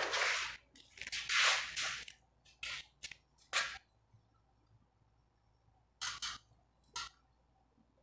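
Scratchy rustling and scraping in short bursts, some a second or so long, others brief, from gloved hands handling the bonsai's wired branches and pot.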